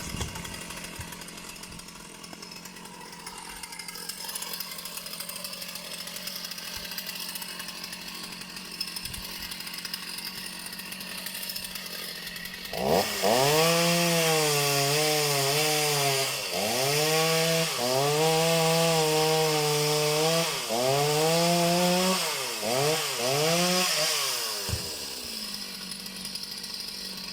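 Two-stroke chainsaw running at low speed, then revved to full throttle about halfway through. Its engine note dips and recovers several times, as it does when the chain loads up in wood, then drops back to low speed near the end.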